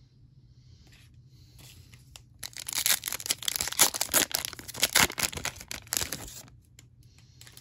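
Foil wrapper of a football trading card pack being torn open and crinkled: a dense crackling that starts about two and a half seconds in and stops about a second before the end.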